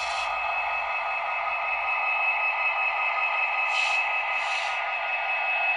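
HO-scale Metra MP36PH-3S model locomotive's onboard sound decoder playing a steady diesel idle through its tiny speaker, thin with no bass. Two short hisses come about four seconds in.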